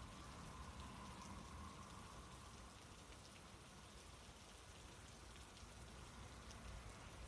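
Near silence: a faint, steady hiss with a few soft ticks.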